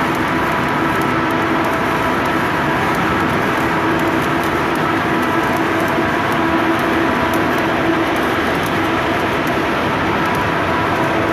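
Steady, unbroken industrial machine noise with a faint hum and a fine crackle running through it, from tank repair and welding work.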